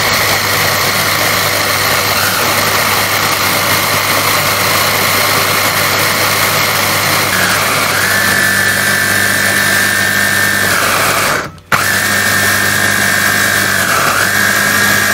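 Small electric food processor's motor running at speed, its blade grinding soaked rice with water into a wet batter. A steady high whine sets in about halfway, and the motor cuts out for a moment about three-quarters of the way through, then runs on.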